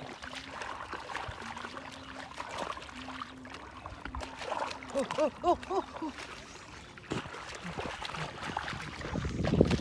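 Shallow muddy water sloshing and splashing irregularly as bare hands dig and grope through it for eels, with a louder burst of sloshing near the end. A few short, rising-and-falling pitched calls come about five seconds in.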